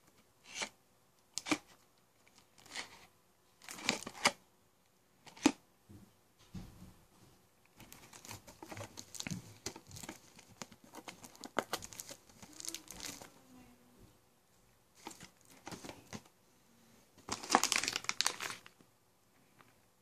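Clear plastic shrink-wrap being torn off a small cardboard box and crumpled by hand: a few short, sharp rips in the first seconds, a longer stretch of crinkling in the middle, and the loudest burst of crinkling near the end.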